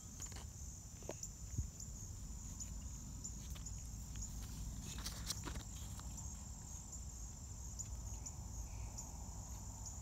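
Insects in the field drone steadily in one high, even pitch, with a low rumble underneath. A few faint clicks and rustles, around a second in and again about five seconds in, come from the milkweed leaf being held and turned by hand.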